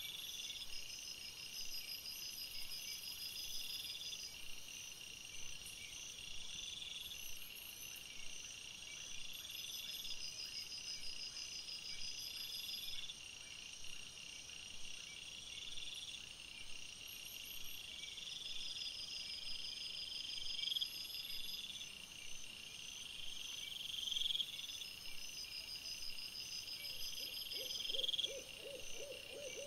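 Night chorus of singing insects, crickets and bush-crickets: a steady high trill under chirping phrases that repeat about every two seconds. Near the end a short run of quick, lower-pitched pulses comes in.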